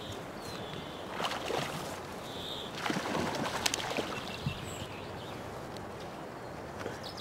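Quiet outdoor river-bank ambience with a few brief rustling, splashing bursts and a faint bird chirp.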